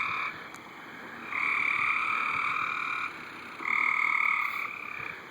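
Frogs calling from a backyard swimming pool: long, steady trills, each lasting one to two seconds, coming one after another with short gaps.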